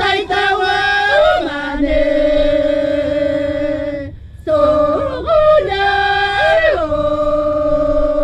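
Two women singing unaccompanied in long held, high notes that slide from one pitch to the next. There is a short pause for breath about four seconds in, and near the end they settle on one long held note.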